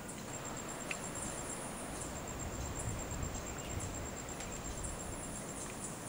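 Outdoor forest ambience with a thin, high-pitched, rapidly pulsing insect trill that stops near the end, over a soft background hiss with a few faint high clicks or chirps.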